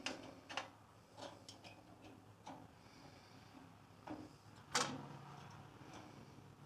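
Allen wrench tightening the bandsaw's ball-bearing guide blocks: scattered light metal clicks and taps, with one sharper click nearly five seconds in.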